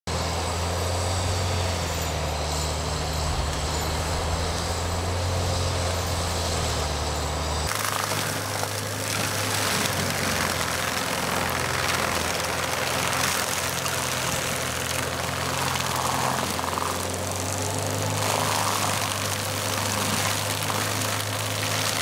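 Diesel engine of a tracked forestry mulcher running steadily. About eight seconds in, the sound changes abruptly to a rougher, noisier one as the mulching head shreds brush and young trees.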